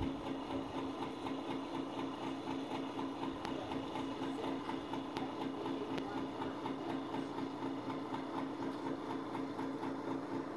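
Steady mechanical hum from a running motor or engine, pulsing several times a second, with a few faint ticks.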